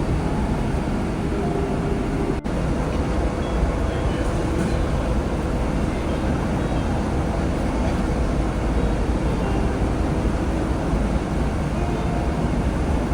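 Steady road and engine rumble heard from inside a moving car, with a very brief drop in the sound about two and a half seconds in.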